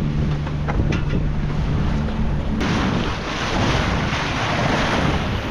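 Water rushing along a sailboat's hull under way, over a steady low hum. About two and a half seconds in, the sound switches abruptly to wind buffeting the microphone over the wash of the sea.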